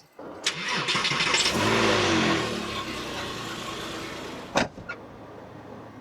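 Porsche 911 (996) flat-six engine being started: the starter cranks briefly, the engine catches and flares up, then settles to a steady idle. A sharp click about four and a half seconds in.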